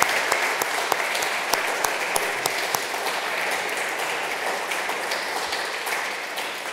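Audience applauding: dense clapping that begins to thin out near the end.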